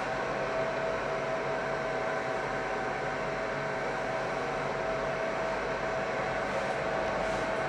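Fiber laser marking machine running: a steady fan whir with a faint steady whine.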